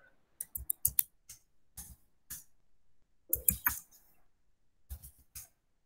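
Keystrokes on a computer keyboard: irregular single clicks and short quick runs, with pauses between.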